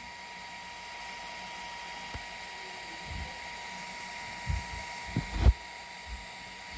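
Toybox 3D printer's fan running with a steady whir and whine as the printer warms up, with a few soft low knocks in the second half.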